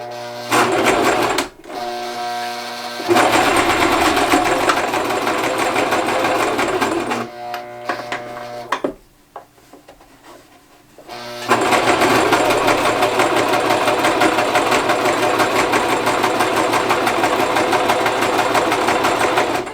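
Sewing machine stitching through thick layers of denim in two runs. The first starts about half a second in and stops about nine seconds in; after a pause of about two seconds the machine starts again and runs steadily to the end.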